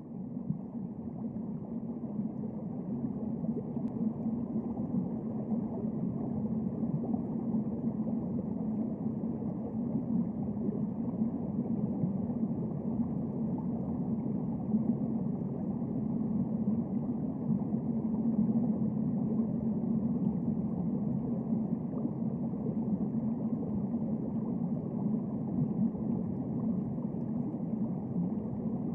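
Steady, muffled underwater noise picked up through a waterproof camera housing: a low, even drone that grows a little louder over the first few seconds and then holds.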